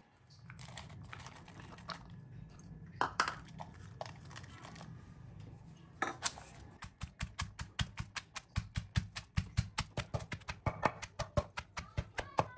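A few knocks and clatters as chopped onions and green chillies go into a stone mortar, then a wooden pestle pounding them against the stone in quick, even strokes from about halfway through.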